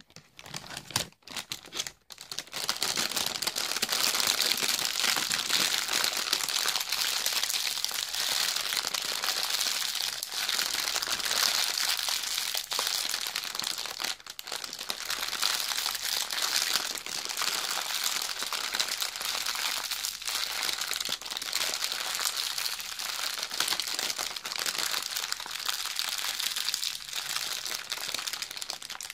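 Hands scrunching and crinkling a clear plastic bag, a dense continuous crackle that starts about two seconds in after a few brief handling knocks.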